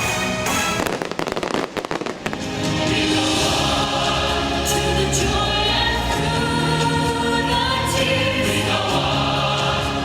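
Fireworks bursts and crackling for about the first two seconds, then the show's orchestral soundtrack with a choir singing takes over and carries on steadily.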